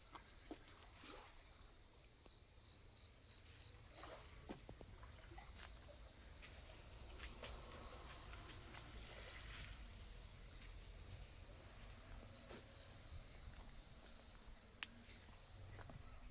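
Faint steady high-pitched chirring of crickets or other autumn insects, with a few scattered light clicks over a low background rumble.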